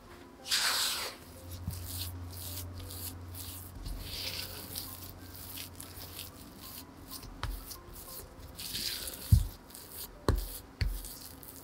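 Silicone spatula scraping and folding crumbly cookie dough around a glass bowl, in several swishing strokes. Near the end there are a few sharp knocks of the spatula against the bowl.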